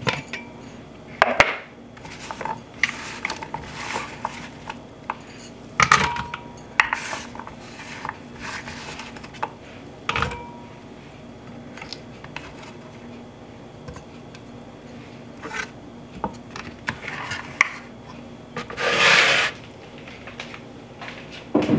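Chopped ginger pieces dropped by hand into a glass blender jar, with scattered clinks and knocks of the pieces and the plastic lid against the glass. A scraping rush about a second long near the end.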